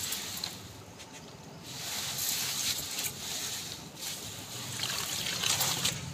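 Clothes being washed by hand in a plastic tub: wet fabric squeezed and sloshed in water, with splashing.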